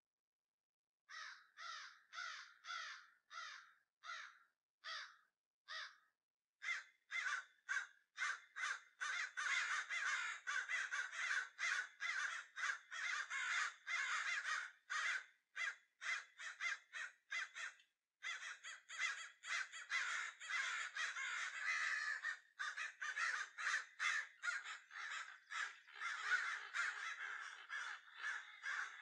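Harsh bird calls, at first single and about two a second, then from about six seconds in a dense clamour of many birds calling over one another.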